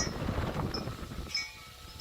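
Strong gusting wind rushing and buffeting the microphone, easing off about a second and a half in. Short, high ringing notes sound through it, and a lower ring lingers as the gust dies down.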